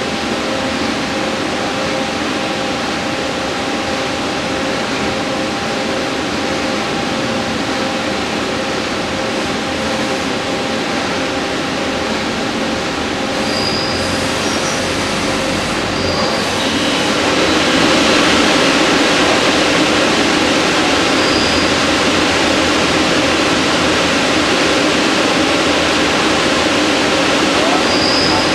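Vertical turning center (Victor Taichung Vturn-V24W) turning a wheel: a steady whir of spindle and cutting noise with several held tones, growing louder and harsher about 17 seconds in, with a few short high squeaks.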